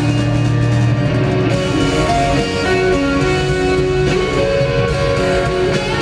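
Live rock band playing at full volume, an electric guitar (a red Stratocaster-style guitar) to the fore with held notes that move from pitch to pitch over the band.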